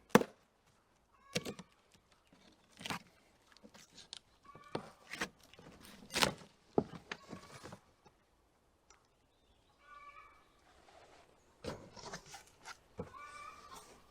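Packaging being handled and opened by hand, with scattered sharp clicks and knocks, while an animal calls several times in short pitched cries.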